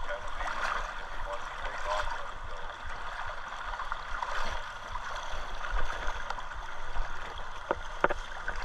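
Kasilof River current rushing steadily, with a couple of sharp clicks near the end.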